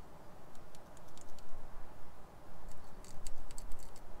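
Light metallic clicks and taps as a steel feeler gauge blade is worked under an engineer's straightedge laid across the machined face of a Ford Pinto's cast-iron cylinder head, checking the head for warping. The clicks come in two spells, the second busier, near the end.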